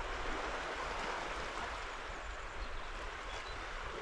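Steady wind noise: a low rumble buffeting the microphone under an even hiss, with no distinct events.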